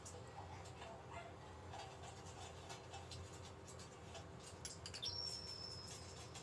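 Faint clicks and scrapes of a silicone spatula and small ceramic dish over a frying pan as mirin is scraped in, with small ticks of liquid bubbling in the hot pan and a low steady hum. A short high squeak comes about five seconds in.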